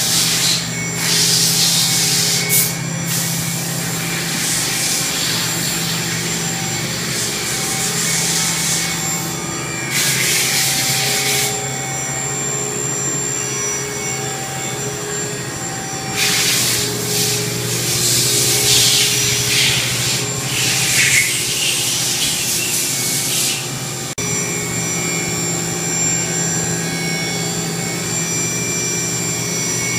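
Steady hum of a powered-up CNC machining center, made of several steady tones. It is broken by stretches of rushing, scraping noise lasting a few seconds each.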